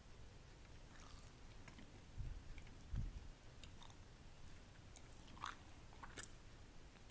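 Quiet close-miked chewing of a crispy pan-fried egg wrap with a soft egg filling: soft mouth sounds with scattered faint crisp clicks, and two sharper clicks near the end.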